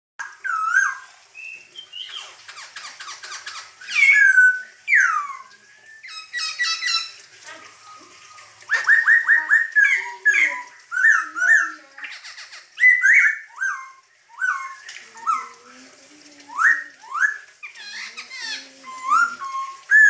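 Black-throated laughingthrush (poksay Hongkong) singing a loud, varied song: clear whistled notes that slide up and down, mixed with quick runs of repeated notes.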